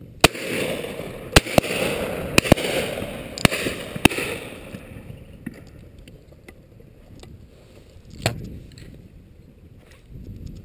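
A rapid volley of shotgun shots from the line of guns on a pheasant drive: about seven sharp reports in the first four seconds, the first the loudest, then a single further shot about eight seconds in.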